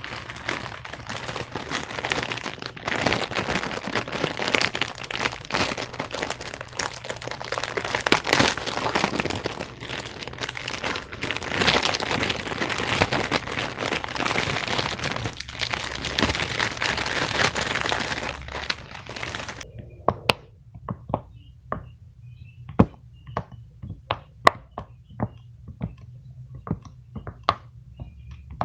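Close-up crinkling and crackling of handled plastic wrapping for about twenty seconds, which stops suddenly; then a run of separate sharp clicks or taps follows, roughly one or two a second.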